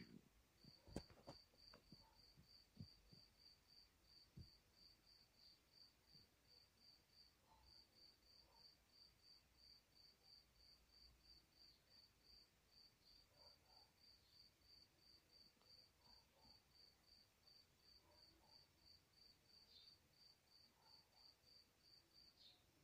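Near silence with a cricket chirping faintly: a steady run of short, high chirps at one pitch, a few a second, broken by brief pauses. A few faint clicks in the first seconds.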